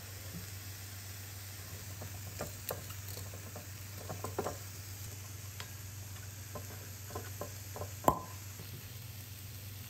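Scattered light clicks and taps over a steady low hum, with one sharper, louder click about eight seconds in.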